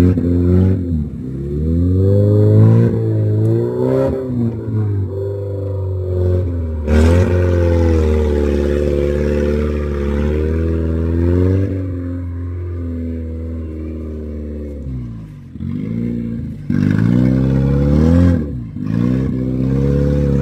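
Opel Frontera 4x4's engine revving up and down under load as it crosses a shallow stream and climbs out onto the bank. About seven seconds in, a burst of splashing water from the wheels runs on for several seconds.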